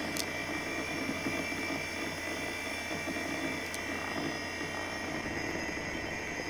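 HP 712/60 workstation running as it boots: its original early-to-mid-90s SCSI hard drive and cooling fan make a steady whir with a high whine. The drive is noisy enough that the owner expects it not to last long.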